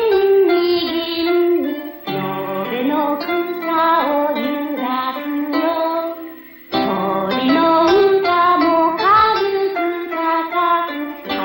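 A young voice singing a slow, lyrical song with vibrato over plucked-string accompaniment, with a short break between phrases about six and a half seconds in.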